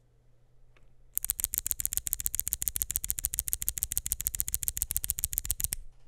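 Fast typing on an FL·ESPORTS CMK75 gasket-mounted mechanical keyboard with FL.CMMK Glacier Pink switches, a polycarbonate plate and PBT keycaps: a quick, dense run of key clacks, about a dozen a second, starting about a second in and stopping just before the end.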